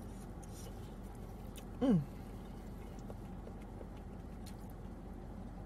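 Quiet eating: faint clicks of a plastic fork against a styrofoam takeout container and soft chewing, over a steady low hum inside the car. About two seconds in, a woman gives one short falling 'mm' of enjoyment.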